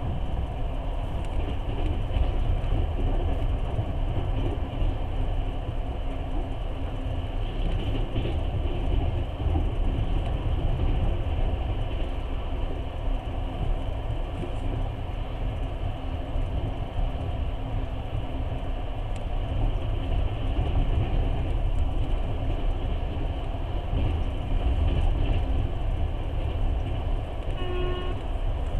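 Passenger train running on the line, a steady rumble and rushing noise of wheels and carriage heard from inside the car through the window glass. Near the end comes a short horn toot.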